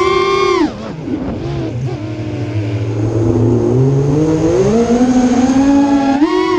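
FPV quadcopter's brushless motors whining, their pitch following the throttle: high at the start, falling off about a second in to a low hum, then climbing again toward the end with a sharp burst of throttle. A rush of air comes through briefly after the drop.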